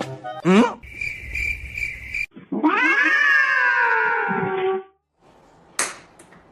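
A pet's long drawn-out cry, lasting about two seconds, that rises and then slowly falls in pitch. It follows a quick rising glide and about a second of steady high buzzing trill. A single click comes near the end.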